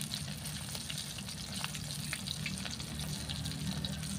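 Whole fish frying in hot oil in a wok, sizzling steadily with scattered small pops.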